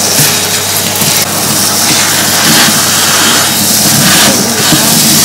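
Vacuum cleaner running steadily, its hose sucking up loose terrarium substrate.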